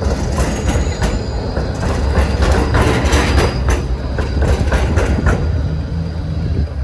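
Tram rolling past on steel rails, its wheels clacking over rail joints with a low rumble that swells in the middle and eases near the end.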